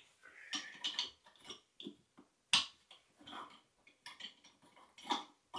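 Light metallic clicks and taps as the chrome parts of a Sloan Royal flushometer valve are handled and fitted back together by hand, with one sharper click about two and a half seconds in.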